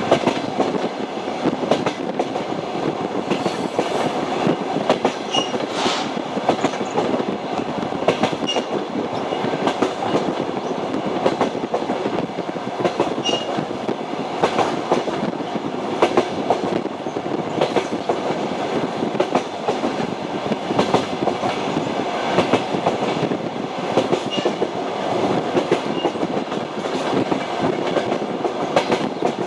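Train wheels clattering over the rail joints as a passenger train runs along: a steady rumble broken by many sharp clicks, with a few brief faint high squeaks.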